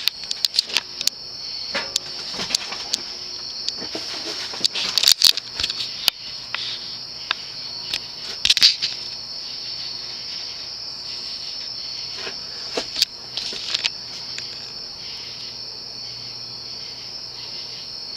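Early-1980s Evergo 'banana' ceiling fan with an open-ended cast-aluminium spinner motor running at its top variable-speed setting, with a faint steady low hum. A steady high-pitched chirring, like insects, sits over it, and scattered sharp clicks and ticks fall in the first half.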